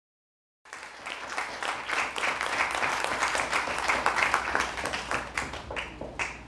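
Audience applauding: dense clapping that starts abruptly about half a second in and thins to a few last claps near the end.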